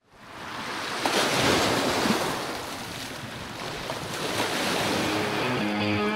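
Surf: waves breaking and washing in, with wind. It fades in at the start and swells a couple of times, and guitar music comes in near the end.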